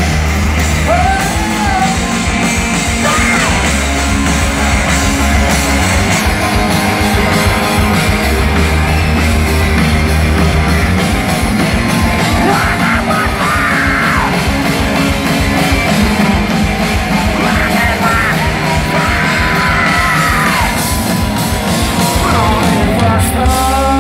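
Live rock band playing loud, with electric guitar, bass guitar and drums. A vocalist sings and shouts into a microphone now and then over the band.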